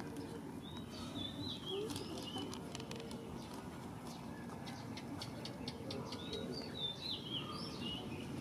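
Small birds chirping in short, wavering phrases, twice, with a run of faint ticks in between over a steady low background.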